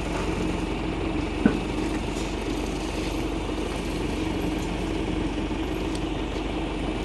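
Sewer suction-and-jetting machine running steadily with an even engine hum. A single sharp click comes about one and a half seconds in.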